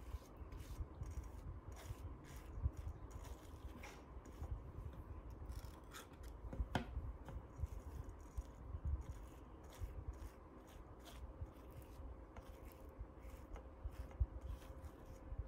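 Table knife spreading peanut butter across a slice of soft bread: faint, irregular scraping strokes, with one sharper tick about seven seconds in.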